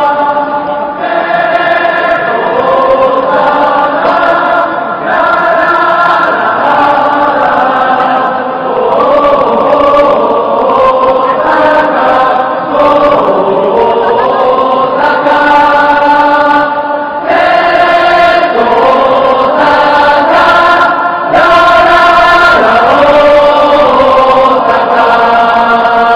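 Stadium crowd of football supporters singing together in unison, a slow melody of long held notes.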